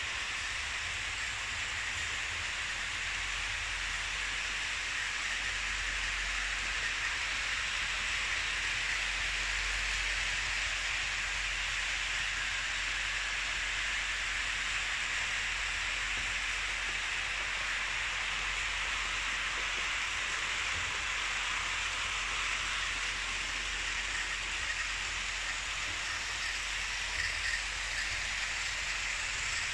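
Märklin H0 model trains running on Märklin C-track: a steady rushing rattle of metal wheels rolling over the track, with a few light clicks near the end.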